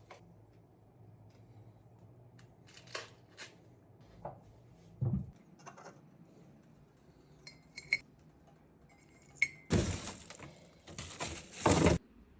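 Hookah being put together: scattered knocks and glass-and-metal clinks, a couple of them ringing briefly. Near the end comes about two seconds of dense rattling.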